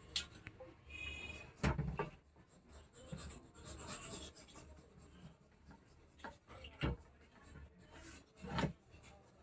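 Faint rubbing and scraping with four sharp knocks over a low steady hum: hands handling tools and parts during amplifier repair work at the bench.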